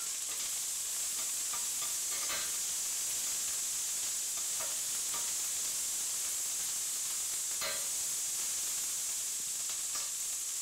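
Chopped green chillies sizzling in hot oil in a stainless steel kadhai, a steady hiss, while a perforated steel spoon stirs them and scrapes and clinks against the pan a few times.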